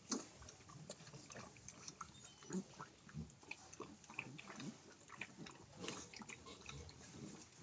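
Farm animals making faint, short noises among scattered clicks and knocks.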